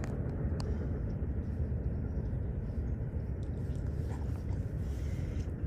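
Steady low outdoor rumble with no clear pitch, with a few faint clicks.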